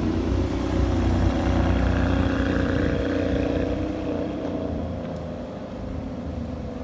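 Ferrari 599 GTB Fiorano's V12 running at low revs as the car rolls slowly away. The sound is steady and then fades over the last few seconds.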